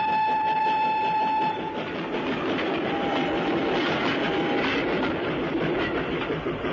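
A held high tone cuts off about a second and a half in. It gives way to a steam-hauled passenger train rolling along the track, its wheels clattering steadily.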